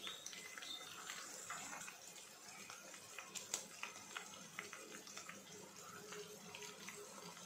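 Faint crackling and sizzling from oil in a pot of fried onions and green chillies, a light hiss dotted with small ticks, with one sharper click about three and a half seconds in.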